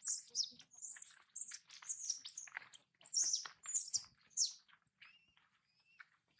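Baby long-tailed macaque squealing: a rapid string of high-pitched shrieks. After about five seconds they thin out into a few short cries that rise in pitch.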